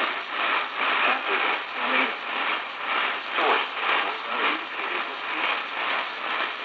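Weak radio reception: a voice broadcast half-buried in heavy hiss and static, thin and tinny with no bass, the sign of a distant, barely-received signal.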